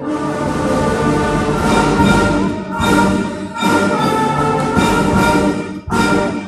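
A brass-led band plays a loud full-ensemble passage. It comes in strongly after a softer passage and moves in accented chords that break off sharply a few times.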